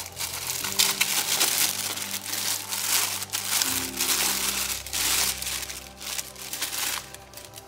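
Clear plastic bag crinkling and rustling as a boxed electronic device is pulled out of it by hand; the crinkling stops about seven seconds in.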